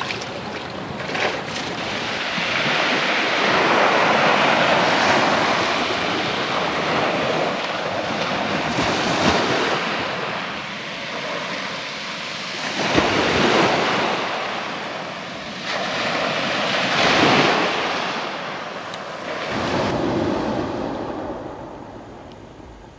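Sea surf washing onto a rocky shore, swelling and falling back every few seconds.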